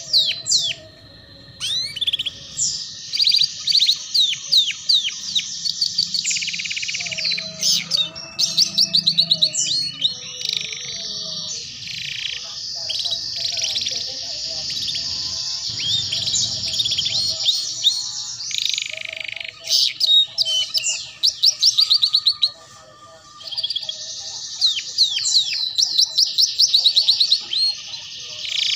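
Domestic canary singing a long, continuous 'ngeriwik' song of rapid trills and quick sweeping notes, with brief pauses about a second in and again about three quarters of the way through.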